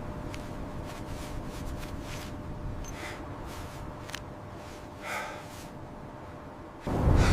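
Steady low wind rumble with a few short breathy snorts. A sudden, louder surge of noise comes near the end.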